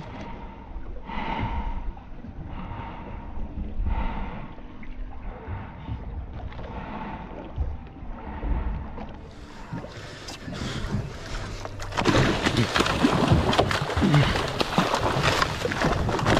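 Hooked cobia splashing at the surface beside the boat: loud, continuous splashing that starts about three-quarters of the way through. Before that, only a low rumble of wind and water.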